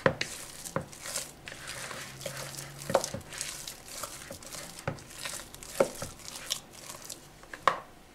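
Silicone spatula stirring and scraping thick mashed potato in a plastic bowl, with irregular scrapes and soft knocks against the bowl.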